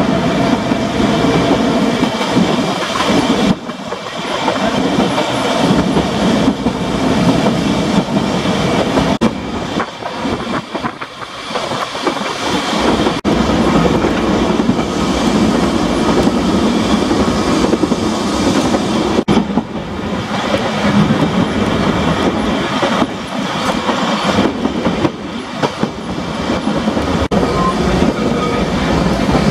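Manx Electric Railway electric tramcar running along the line, heard from inside the car: a steady rumble of wheels on rail, with a few sharp clicks and a couple of brief quieter stretches.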